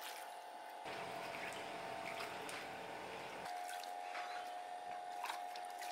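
Cut mustard greens being rinsed by hand in a plastic bowl of water: soft sloshing, splashes and drips as the leaves are swished and lifted into a plastic colander. Faint, over a steady thin tone.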